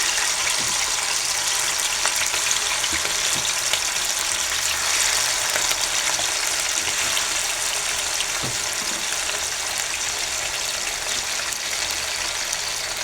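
Chicken pieces frying in hot oil: a steady sizzle with scattered small crackles.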